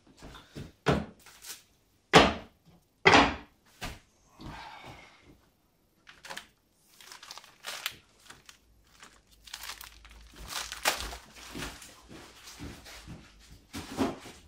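Test load of sugar bags and packets being lifted off a model MDF bridge deck: a run of knocks and thuds, the two loudest about two and three seconds in, then busier handling noise in the second half.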